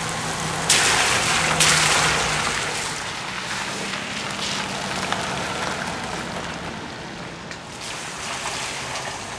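Car tyres hissing on a wet road as vehicles pass, swelling twice within the first couple of seconds and then fading to a steady wash of spray noise.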